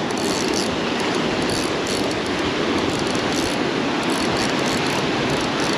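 Rough surf breaking and washing against the rocks of a seawall jetty: a steady rush of waves.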